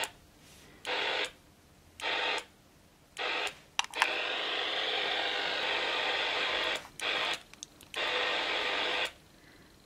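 Shortwave band-noise hiss from a Yaesu HF transceiver's speaker on 17 metres. It cuts out abruptly whenever the rig is keyed to transmit and comes back when it drops to receive. The result is several short bursts of hiss and one longer stretch of about three seconds, with silent gaps between them.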